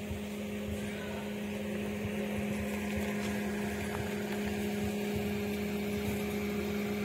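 A motor running at constant speed: a steady, low, even hum that holds one pitch throughout.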